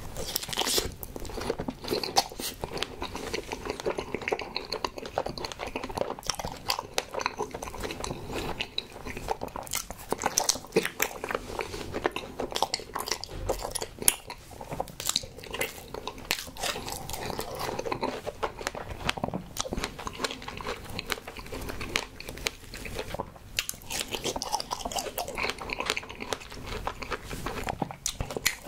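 Close-miked biting and steady chewing of soft strawberry sweets such as strawberry marshmallows, with many small mouth clicks throughout.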